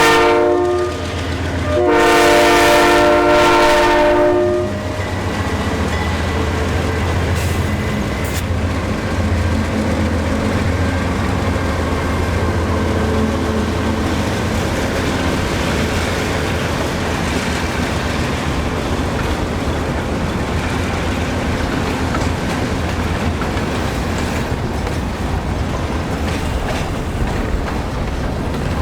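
Diesel freight locomotive's air horn sounding: one blast ending just after the start and a second, longer one from about 2 to 4.5 seconds in, followed by the steady low drone of the locomotive's engine and the rumble of the passing train.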